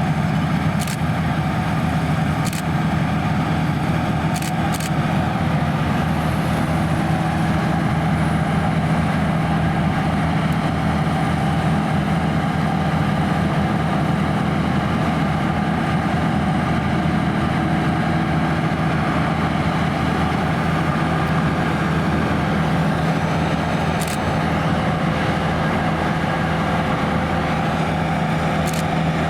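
Claas Lexion 580 Terra-Trac combine harvester running steadily while combining barley: a constant engine and machinery hum, with a few light ticks.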